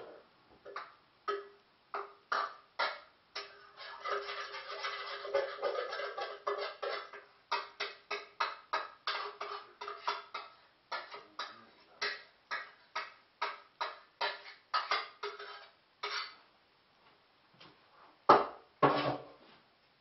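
Metal pots and dishes clattering and knocking in a kitchen sink as they are washed up, with a denser run of clatter about four seconds in and two loud knocks near the end.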